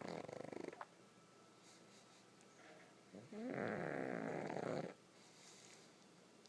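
A pug snoring loudly in her sleep with a rattling snore. One snore ends about a second in, and a second one lasting about a second and a half starts around three and a half seconds in.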